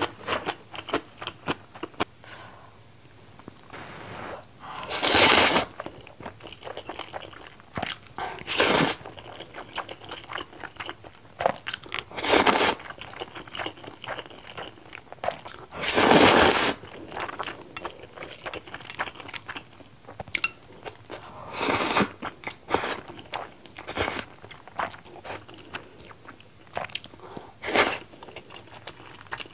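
Close-miked eating of saucy instant ramen noodles: about six loud slurps several seconds apart, with wet chewing and small smacking clicks in between.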